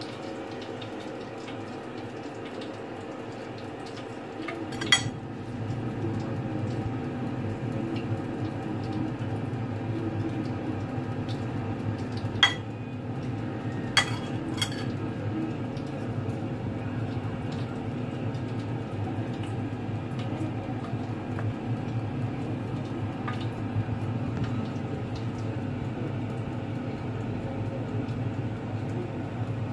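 A metal spoon clinks sharply against a ceramic bowl four times (about five seconds in, then three times between twelve and fifteen seconds) while kangkong leaves are coated in batter. A steady low hum runs underneath and gets louder after about five seconds.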